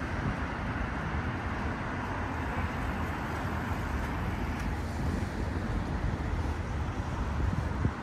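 Steady city road traffic: a constant rush of passing cars with a low rumble underneath.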